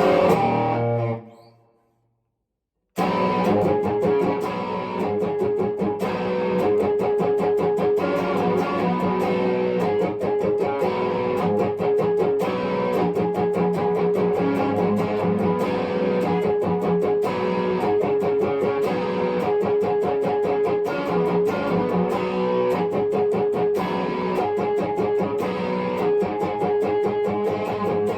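Epiphone 1959 Les Paul Standard electric guitar. A loud chord at the start dies away to silence, and about three seconds in the guitar starts again with continuous picked playing.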